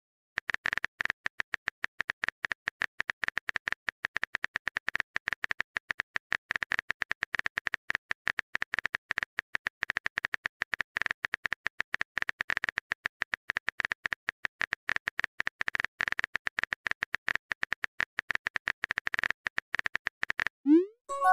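Phone-keyboard typing sound effect: a long run of rapid, irregular clicks that stops about a second before the end. A short rising 'bloop' message-alert tone follows as the next chat message pops up.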